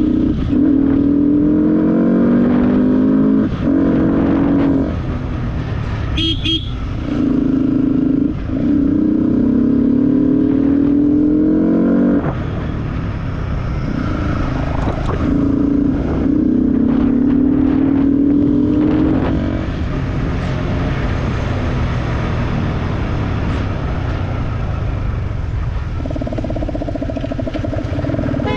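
Motorcycle engine pulling through the gears, its pitch climbing and then dropping back at each shift, over wind and road noise. A short horn toot about six seconds in.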